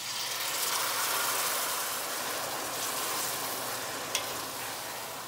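Water hitting the hot oil and roasted vermicelli in a stainless steel pot, sizzling and slowly dying down as the mix is stirred with a wooden spoon. A single brief click about four seconds in.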